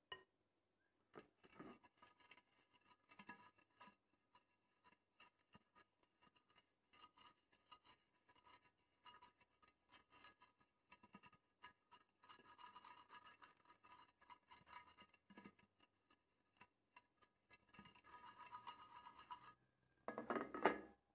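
Silicone pastry brush swept around the inside of a fluted cake pan, greasing it: soft, scratchy strokes with a faint ring from the pan. The strokes are irregular and busiest in the middle and again later, and there is a louder scraping handling sound near the end.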